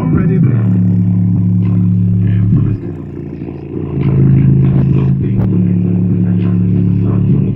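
Subwoofer playing deep, held bass notes at high volume: one long low note, a brief drop about three seconds in, then another long low note. Faint rattling clicks sit on top.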